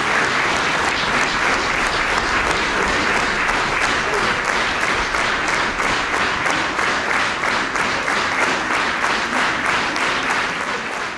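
Audience applauding steadily, many hands clapping at once, with a regular clapping rhythm showing through.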